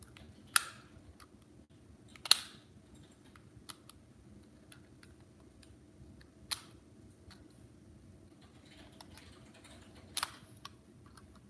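Sharp plastic clicks, about five spread out, from a computer mouse's shell being pried at to get a small part off.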